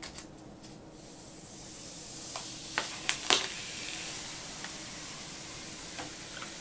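Protective plastic film being peeled off the XP-Pen Innovator 16 pen display's screen: a steady crackling hiss as the film lifts away, with a few sharp clicks about three seconds in. A satisfying film peel.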